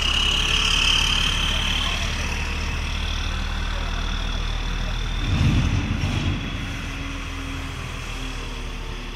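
Locatelli Grill 830 mobile crane's diesel engine idling steadily, with a high whine most noticeable in the first two seconds. A short louder low burst comes about five seconds in, and the engine grows fainter near the end.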